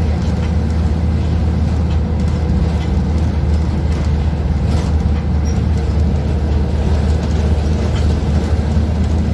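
Cabin noise inside a moving Zhong Tong LCK6180GC articulated bus: the steady low drone of its Doosan GL11K CNG engine mixed with road noise.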